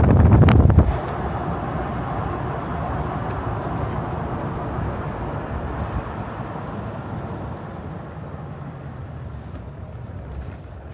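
A vehicle going by: loud for the first second, then a steady rumbling noise that slowly fades away.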